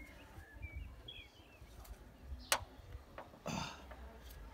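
Quiet hand work on the Vauxhall Zafira 1.6 petrol engine's bare cylinder head, with a low rumble of handling throughout. A single sharp click comes about halfway through, and a smaller one follows shortly after. Faint bird chirps are heard about a second in.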